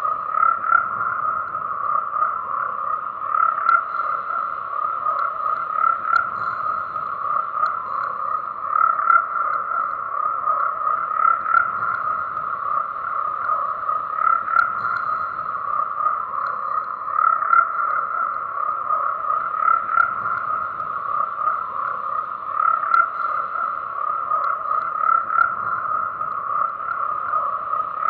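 A chorus of frogs calling continuously, many overlapping croaks merging into a dense, steady din that swells every few seconds.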